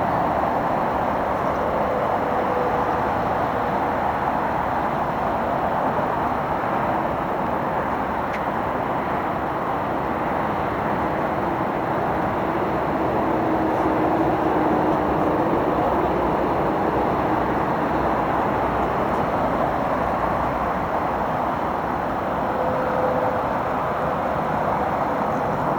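Freshbins EasycleanUltra MK3 bin washing machine running with a steady, unbroken mechanical noise and a faint held hum.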